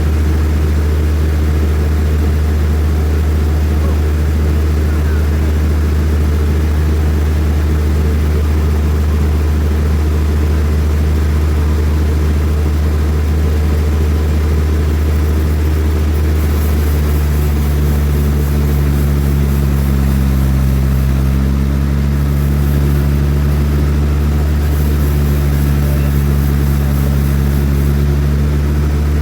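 Large band sawmill running steadily under power, a loud, deep machine drone that shifts in tone a little past halfway as the load changes.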